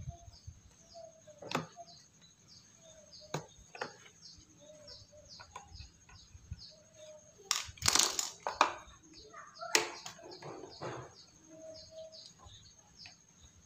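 Scattered clicks, knocks and clatter of a screwdriver and hand working at the carburettor of a backpack mist sprayer's small two-stroke engine, loudest about eight and ten seconds in. Behind it a bird chirps about twice a second.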